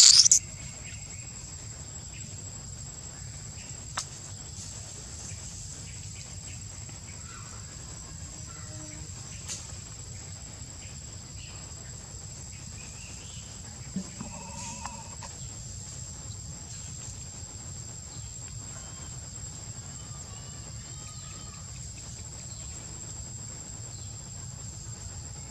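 A newborn monkey gives one brief, loud, high-pitched squeal at the very start. After it comes a steady high insect drone, with a few faint clicks.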